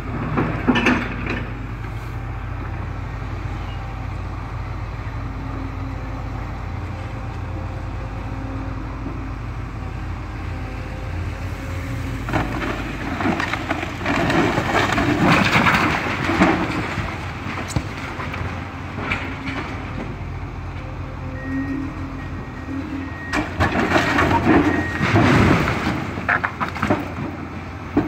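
Komatsu PC490 excavator's diesel engine running steadily while its bucket breaks bricks off the top of a brick wall, with masonry crunching and clattering down in bouts: briefly about a second in, at length around the middle, and again near the end.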